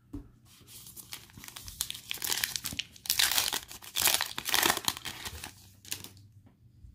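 Foil wrapper of an Illusions football card pack crinkling and tearing as it is ripped open by hand, loudest through the middle.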